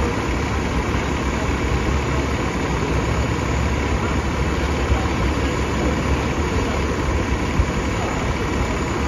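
Articulated city bus engine idling at a stop, a steady low rumble that holds level throughout.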